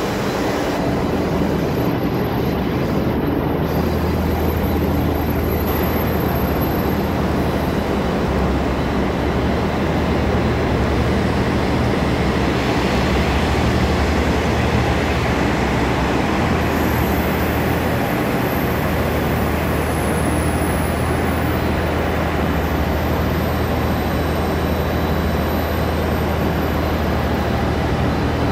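JR HC85 series hybrid diesel railcar standing with its engine idling: a steady low hum.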